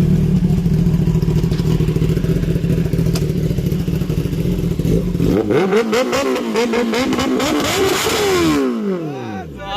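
Kawasaki ZX-10R's inline-four engine running loud and steady, then revved in quick blips about five seconds in, its pitch rising and falling, before sliding steadily down near the end.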